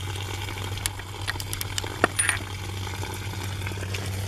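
Scattered metallic clinks and taps from a ratchet and socket working the spark plugs on a Yamaha 15 hp outboard, over a steady low hum.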